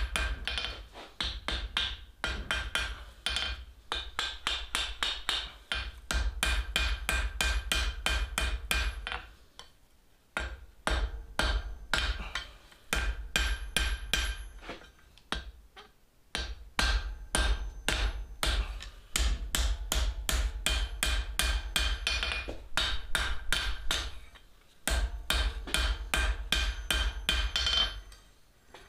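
Hand hammer striking hot steel on an anvil in quick runs of several blows a second, broken by a few brief pauses, each blow ringing with a clear metallic tone. The glowing end of a half-inch round bar is being flattened into the bowl of a flux spoon.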